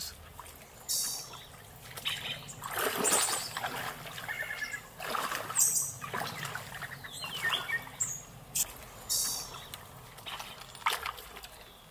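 A person wading through a shallow stream: irregular splashes and sloshing water as the feet step through it, several sharper splashes among them.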